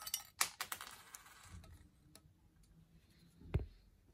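Handling noise on a stereo microscope: a quick run of sharp clicks and light knocks in the first second, a few faint ticks, then a single dull thump about three and a half seconds in.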